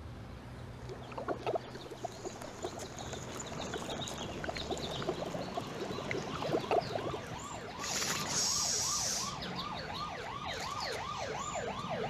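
Water bubbling in a glass bong as smoke is drawn through it, then from about seven seconds in a siren rising and falling about twice a second, with a brief hiss about eight seconds in.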